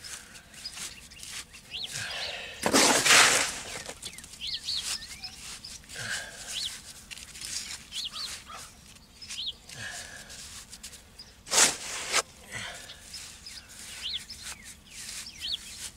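Gloved hands packing and smoothing wet cement under a basement window frame: soft scrapes and small clicks, with two louder rushing scrapes about three seconds in and again near twelve seconds. Small birds chirp briefly every few seconds in the background.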